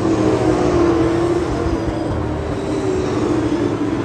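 Several dirt modified race cars racing round a dirt oval together, their engines running at high revs in a steady loud drone.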